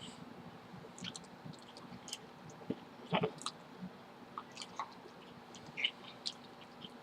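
A person chewing food close to the microphone: scattered small wet clicks and mouth noises, with one louder sound about three seconds in.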